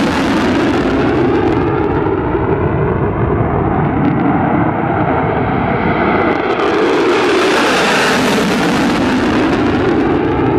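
Lockheed Martin F-35's single Pratt & Whitney F135 turbofan roaring in afterburner as the jet flies past and climbs. It is loud and steady, with a hollow sweeping quality as bands of pitch glide down and back up; the high hiss thins out about two seconds in and returns near the end.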